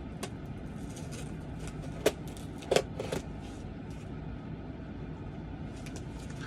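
Cardboard packaging being opened by hand: a few short, sharp crinkles and knocks about two to three seconds in, over a steady low hum.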